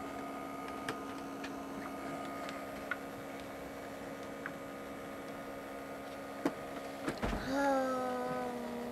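Steady electric hum of a small tabletop air hockey table's blower fan, with light clicks and taps of plastic pieces on the table. About six and a half seconds in the hum cuts out with a click; about a second later it starts again, louder and a little higher, and slides down in pitch as it settles.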